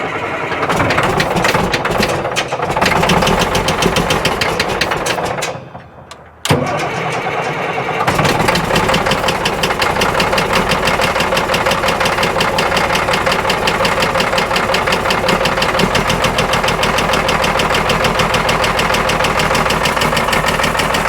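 Caterpillar 977L track loader's diesel engine being cranked on ether. The starter stops briefly about five seconds in and then cranks again. About eight seconds in the engine catches and runs steadily with a fast, even beat.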